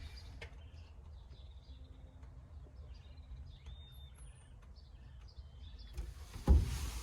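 Faint outdoor background: a low rumble with a few scattered bird chirps. About six seconds in, a steady hiss starts, followed by a heavy thump.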